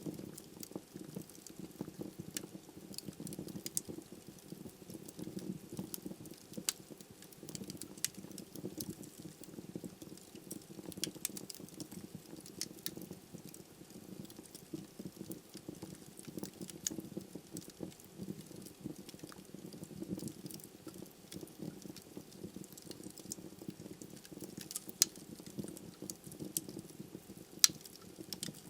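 Wood fire burning in a fireplace: a steady low rush of flame under frequent small sharp crackles from the logs, with two louder pops near the end.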